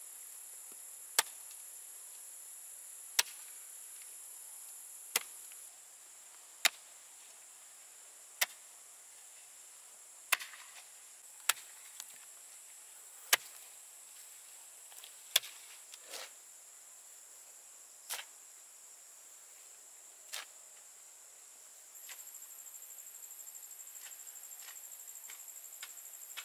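A metal hoe blade chopping into hard, dry soil: about a dozen sharp strikes, roughly one every two seconds, fading to faint ticks near the end. A steady high-pitched insect drone runs underneath.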